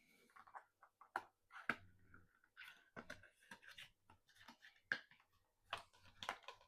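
Faint, scattered clicks and taps of small cardboard packaging being handled as an advent calendar item is taken out.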